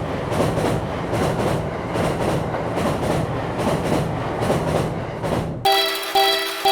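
A train running past, wheels clattering over rail joints in a steady rhythm over a dense rumble. It cuts off suddenly a little before the end, and a repeating pulsed tone comes in.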